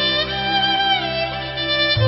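Instrumental background music, a sustained melody with a few sliding notes.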